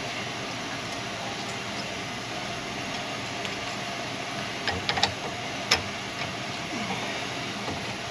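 Steady machine hum, with a few light metallic clicks about halfway through as a drill bit is fitted into a drill press chuck.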